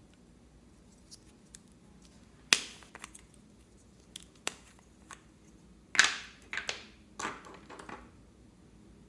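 Slime being squeezed and stretched by hand, giving a series of sharp pops and snaps: about four loud ones with several fainter clicks between them.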